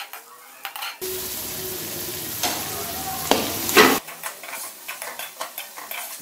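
Metal slotted spatula scraping and stirring chopped vegetables and chicken around a metal karahi as they stir-fry in oil, with a steady sizzle that comes up about a second in and drops back at about four seconds.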